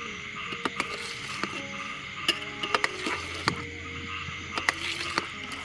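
Knife cutting set jelly in a metal tray: a series of sharp clicks and taps as the blade strikes the tray's metal bottom, spaced irregularly, over a steady high background hum.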